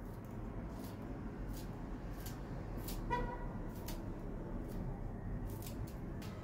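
Kitchen scissors snipping green chives, a string of short sharp snips, over a low steady hum. A brief high-pitched toot sounds once about three seconds in.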